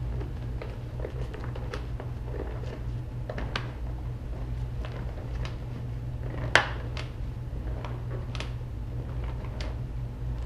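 Hands working a mountain-bike tire bead onto the rim over a CushCore insert: scattered light clicks and rubbing of the tire rubber against the rim, with one sharper click about six and a half seconds in. A steady low hum runs underneath.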